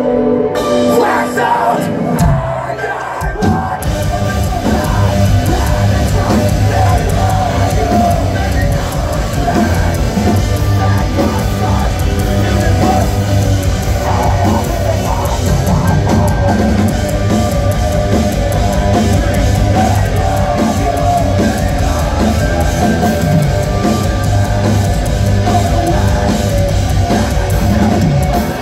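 Metalcore band playing live, with heavy distorted guitars, drums and vocals. The low end drops out briefly about two to three seconds in, then the full band comes back in and plays on.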